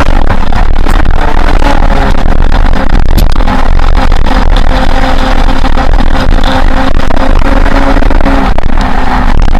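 Heavy wind buffeting on the action camera's microphone at speed, loud and nearly constant. Underneath it runs the engine note of a 1996 Honda CBR 600F's inline-four, fairly steady in pitch.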